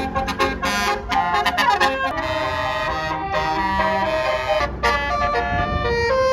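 Bus telolet horn, a multi-trumpet air horn, playing a melody: quick note changes at first, then a run of held chords that shift pitch every second or so.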